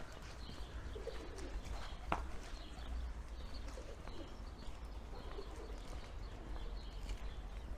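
Pigeons cooing in soft low calls several times, over steady street ambience, with one sharp click about two seconds in.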